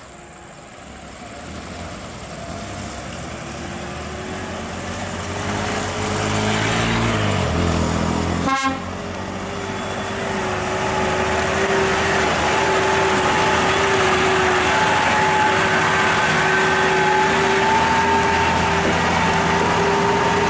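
Heavy truck engine working up a grade, growing steadily louder as it approaches. There is a sharp click midway, and from about halfway on a steady, sustained tone rides over the engine.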